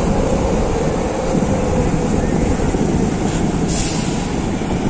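Large coach bus driving through the intersection close by, its engine and tyres heard as a steady heavy-vehicle noise over city traffic.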